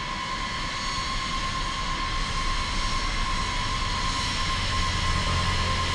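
B-52 bomber's jet engines running as it rolls along the runway: a steady rushing noise with a high whine held on one pitch.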